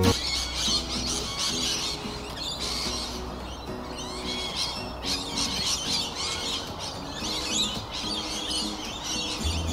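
Many small birds chirping, with quick, high, overlapping calls.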